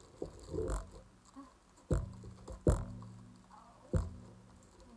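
A metal tripod being unwrapped and handled: four sharp knocks with a short low ring after each, with plastic bag rustling between them.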